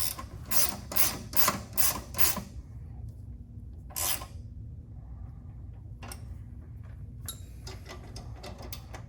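Hand ratchet wrench working a bolt on a sway bar link: a quick run of clicking strokes, two to three a second, then a single stroke, then lighter clicking near the end.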